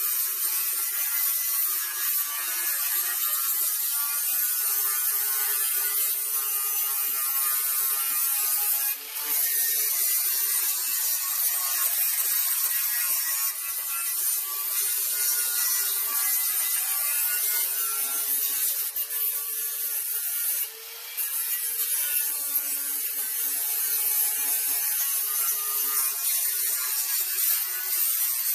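Electric angle grinder with a flap disc grinding rust off the sheet steel of a VW bus apron, cleaning the metal before welding. It runs as a steady high whine that dips briefly twice, about a third and two thirds of the way through.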